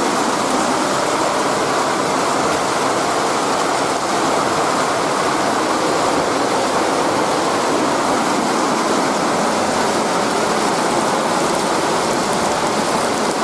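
Steady rain shower falling, an even hiss.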